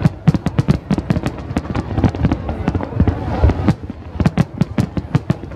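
Large fireworks display: a dense, rapid run of overlapping bangs and crackling bursts, many a second, with a brief lull about two-thirds of the way through.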